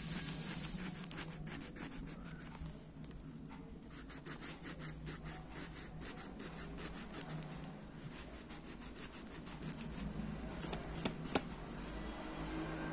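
A small rubber smiley-face eraser rubbed quickly back and forth over pencil marks on paper: a long run of short scratchy strokes, several a second. There is a brief pause about three-quarters of the way through, and a few sharper strokes near the end.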